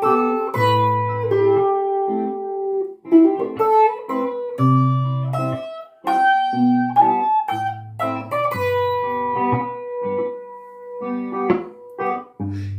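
Instrumental break of a song: a guitar picking a melody of single plucked notes over a bass line.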